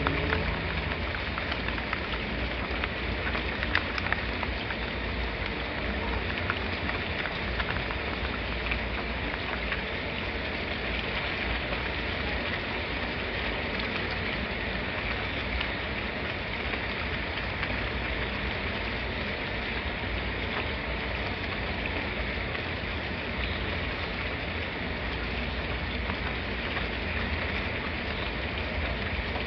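Steady rain falling, a dense patter of drops on a surface with a low rumble underneath.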